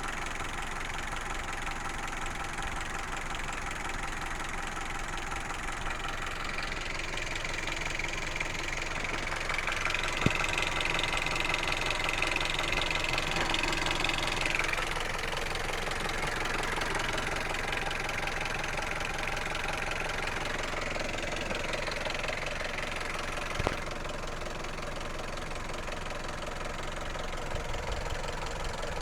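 Hyundai Solaris 1.6-litre petrol engine running with a steady knock, a knock that appeared after the engine overheated. It gets a little louder for a few seconds around the middle, with two brief sharp clicks.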